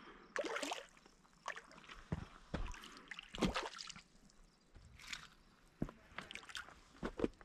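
Irregular short splashes from a hooked fish fighting at the surface as it is reeled in toward shore, a dozen or so scattered bursts with quiet gaps between.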